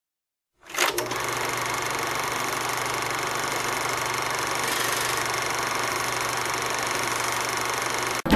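Film projector running: a steady mechanical whirr and clatter with a low hum, starting just under a second in and cutting off abruptly near the end.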